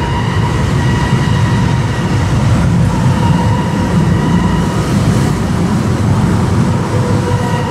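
Steady mechanical drone with a thin, even whine from the drive of a pipe-testing press, running as it slowly squeezes a large plastic pipe during a deflection test.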